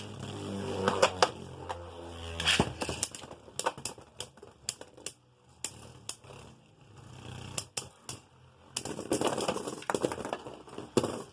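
Two Beyblade spinning tops in a plastic stadium: a spinning hum that falls in pitch over the first couple of seconds, then repeated sharp clicks and clacks as the tops strike each other and the stadium wall, in a quick clattering run near the end.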